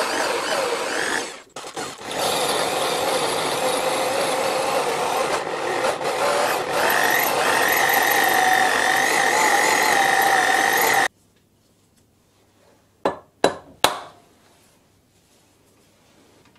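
Cross-drilling spindle running a drill bit into the side of a metal spindle-nose attachment: a steady grinding cutting noise, dipping briefly about a second in, with a high steady squeal over the last few seconds before it stops abruptly. Three sharp clicks follow a couple of seconds later.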